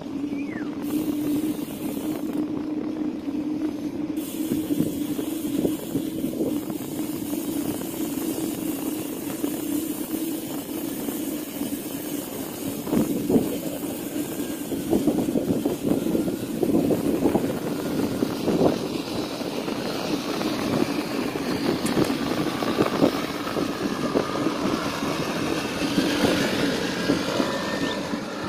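Steady road noise of riding along a paved road: wind on the microphone and tyre rumble, with a low steady hum. In the last few seconds a rising engine tone of a passing motor vehicle comes in.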